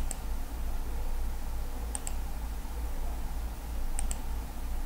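Computer mouse button clicked three times, about two seconds apart, each click a sharp press-and-release pair, over a steady low hum.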